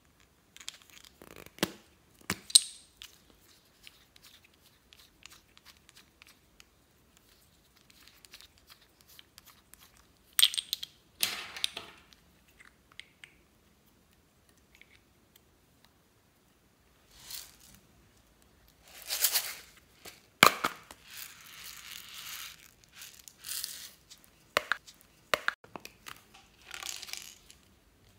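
Hands handling small plastic lip balm tubes and a plastic container close to the microphone: scattered clicks and taps, with several louder scraping, rustling bursts about ten seconds in and again near the two-thirds mark.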